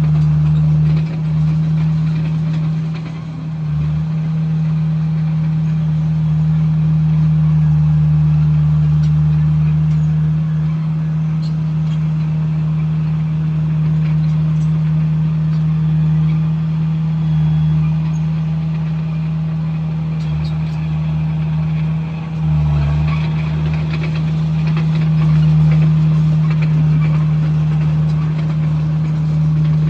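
Komatsu bulldozer's diesel engine running steadily at a constant pitch, with two brief dips in level, about three seconds in and again a little past twenty seconds.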